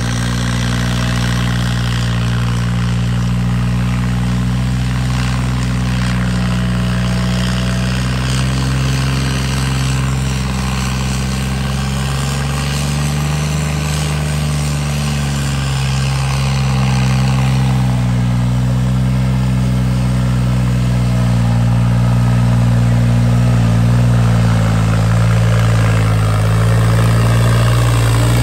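Tractor diesel engine running steadily at a near-constant pitch, rising slightly and settling back near the middle, and getting a little louder later on.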